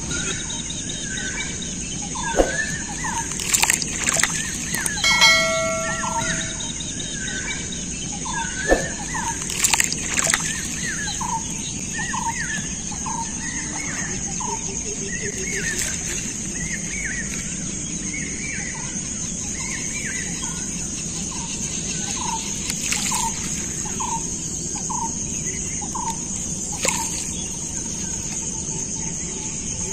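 A short animal call repeated over and over, a little faster than once a second, over a steady high buzz of insects. A few sharp knocks come in the first ten seconds.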